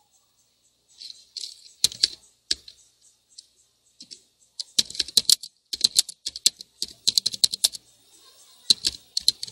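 Typing on a computer keyboard: a few scattered clicks, then quick runs of keystrokes with short pauses between words.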